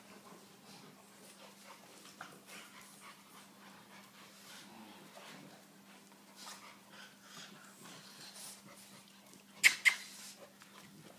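St Bernard puppy and French bulldogs play-fighting: soft scuffling with quiet whimpering and panting, then two short, loud yaps in quick succession about nine and a half seconds in.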